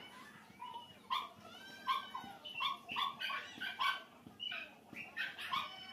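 An animal's quick run of short, high-pitched cries, about ten of them, some sliding in pitch.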